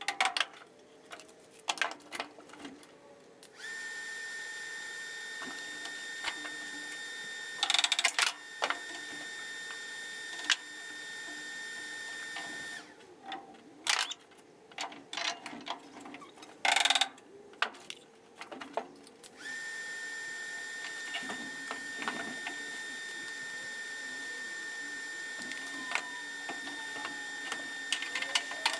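Workshop metalwork: a steady high machine whine that stops for a few seconds and then starts again, with a few short, loud crackling bursts and scattered clicks and knocks.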